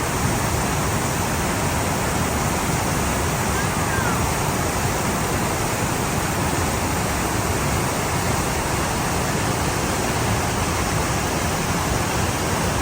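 Steady rushing of a waterfall, the Lower Tahquamenon Falls: a constant, even roar of falling water.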